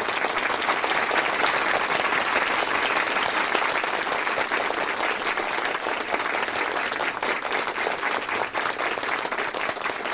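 Audience applauding: dense, steady clapping from many hands, easing off a little near the end.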